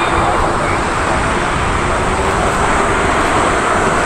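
Twin turbofan engines of a Boeing 787-8 running at high power on the runway: a steady, loud roar with an unsteady low rumble beneath it.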